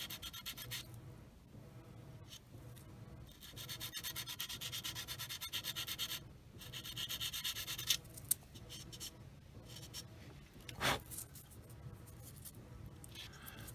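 Sanding stick rubbing back and forth on the plastic of a scale model aircraft, in two runs of quick strokes, with a single sharp knock later on.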